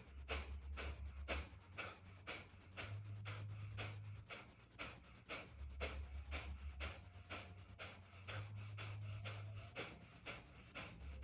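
Kapalabhati (breath of fire) breathing: rapid, forceful exhales pumped out through the nose by the lower abdomen, about three a second in an even rhythm, with passive inhales between. A low hum sits underneath.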